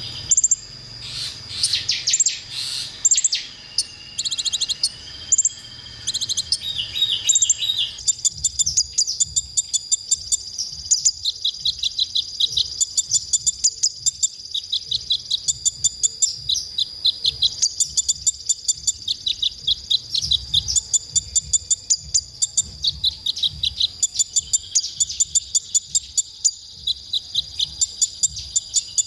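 Male kolibri ninja (purple-throated sunbird) singing high, rapid twittering phrases. From about eight seconds in these settle into short, quick trills repeated about once a second.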